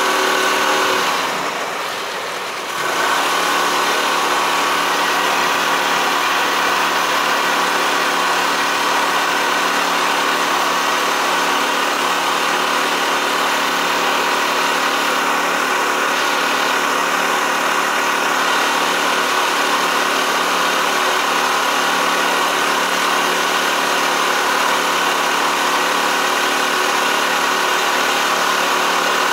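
Motorboat engine running steadily while under way, its level dipping briefly about two seconds in.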